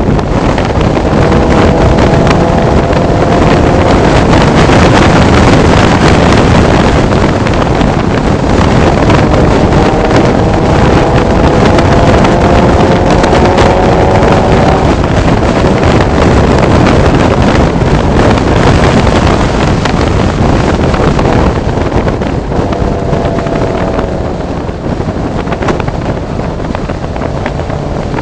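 Nissan 300ZX Twin Turbo's VG30DETT V6 pulling hard under acceleration, its pitch climbing slowly for several seconds at a time, three times, then breaking off. Heavy wind buffeting on the microphone and road noise run under it.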